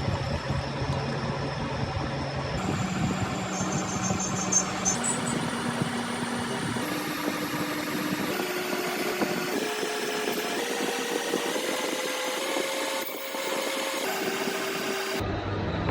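Metal lathe running: a steady machine hum whose tone jumps abruptly to a new, mostly higher pitch every second or two.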